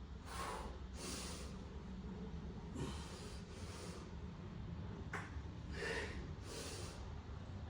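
A man breathing hard from exertion during air squats, about six heavy breaths in and out that come in pairs.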